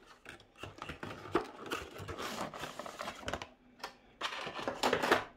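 Boxed action figure's packaging being opened and handled by hand: a run of irregular clicks, taps and crinkling, with a louder stretch of rustling about four seconds in.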